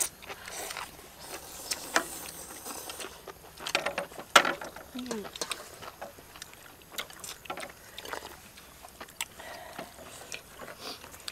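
People eating noodle soup: chopsticks and a metal ladle clicking and clinking against bowls and the metal wok, with slurping and chewing. The loudest clink comes about four seconds in.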